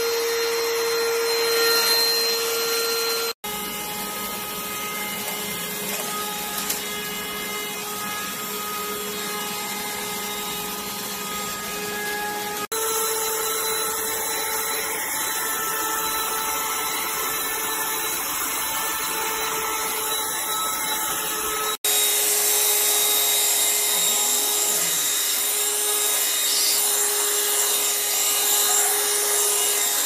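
Kadonio cordless stick vacuum cleaner running steadily: an even motor whine over the hiss of air being drawn through the floor head. It drops out briefly three times.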